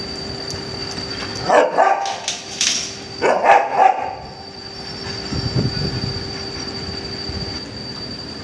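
Dogs barking in two short bursts, the first about a second and a half in and the second about three seconds in.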